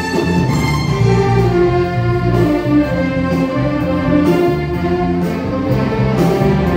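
Orchestral-style music with a string-like melody of held notes over steady bass notes.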